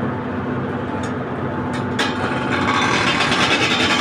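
Heavy machine engine running steadily. About two seconds in there is a click, and after it a louder, rougher noise.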